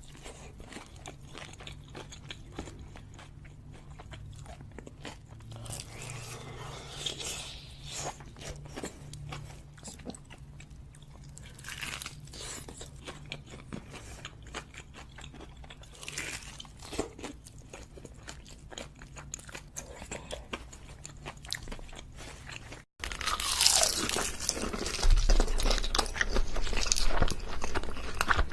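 Close-miked crunching and chewing of crisp food, a dense run of crackly bites. After a brief dropout about 23 seconds in, the crunching is louder.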